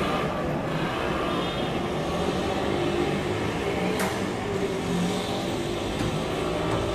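Steady road traffic noise, with a single sharp click about four seconds in.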